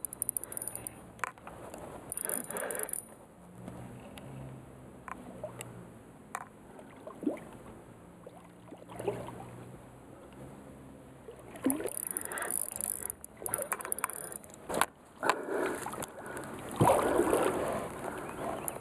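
Small boat on a river while a fish is played on rod and reel: water noise at the hull, with scattered knocks and clicks of the fishing tackle and boat being handled. It grows louder and busier in the second half.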